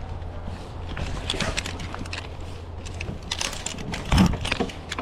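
Metal ropes-course safety clips and carabiners clinking and rattling on the harness and safety line in a run of sharp clicks, with one heavy thump about four seconds in.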